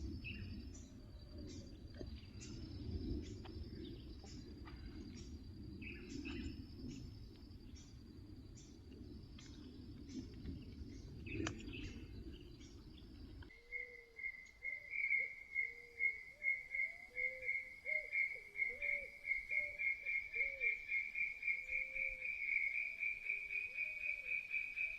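Insects and frogs calling by the water. For the first half, a low rumble sits under insect chirps repeating about twice a second. About 13 seconds in the rumble cuts off, and a fast pulsing trill, rising slightly in pitch, takes over with short low frog calls beneath it.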